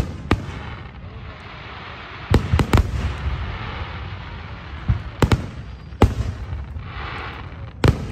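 Aerial firework shells bursting overhead: a run of sharp booms at irregular intervals, several coming in quick succession, with a noisy wash between the bangs.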